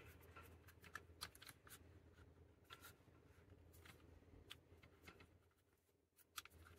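Faint handling noise from an Ulanzi MT-16 mini tripod stick: scattered small clicks and rubbing as its ball head is turned and its legs are worked. The sharpest clicks come near the end.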